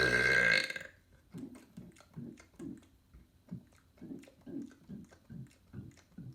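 A man's long, loud, deep burp ends about half a second in. It is followed by a run of short, much quieter throat sounds, about two a second.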